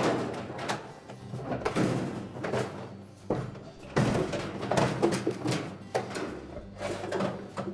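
Plastic washer tub being lowered into the metal washer cabinet: a run of knocks, bumps and scrapes as it strikes and slides against the frame.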